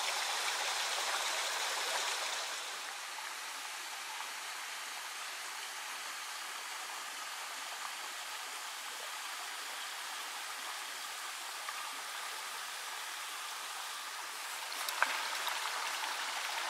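Mountain stream flowing steadily, a continuous rushing of water that steps down a little in level about two and a half seconds in. Near the end it grows a little louder and there is a single sharp click.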